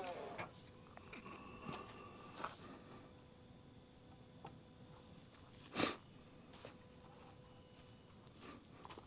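Crickets chirping steadily in a high, even pulse. A few faint clicks, and one louder knock a little before six seconds in.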